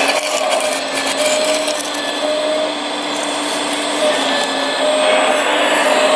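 Radio-controlled scale model excavator at work: a steady motor whine, with shorter higher tones coming and going every second or so as the boom and bucket move through dry loose soil.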